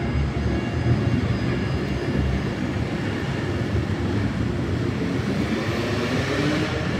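Subway train running overhead on an elevated steel structure, a steady rumble that takes on a brighter hiss about six seconds in.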